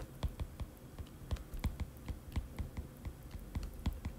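Stylus tip tapping and clicking on a tablet's glass screen while writing by hand: light, irregular clicks, about four a second.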